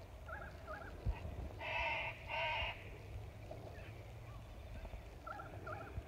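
Waterbirds calling from the pond: a pair of short notes, then two louder, longer calls about two seconds in, and another pair of short notes near the end, over a low rumble.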